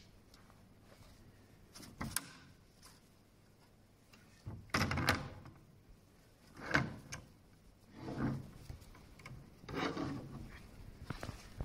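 A black cotton garment rustling and rubbing as it is handled and pulled over a plastic embroidery hooping fixture, in five or six short bursts with light knocks.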